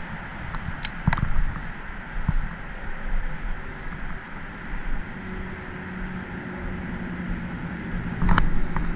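Wind noise on the microphone over a low, steady hum that comes in about halfway, with a few short clicks in the first two seconds and a brief louder rustle near the end.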